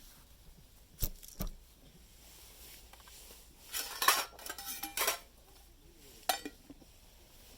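Metal camp cookware and utensils clinking. There are two light knocks about a second in, then a run of clinks with a brief metallic ring around the middle, the loudest part, and one more clink later.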